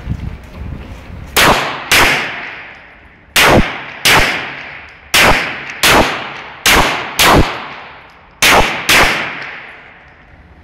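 Glock 17 9mm pistol fired in five quick pairs of shots (double taps), the two shots of each pair about half a second apart, each shot ringing on in the reverberant indoor range.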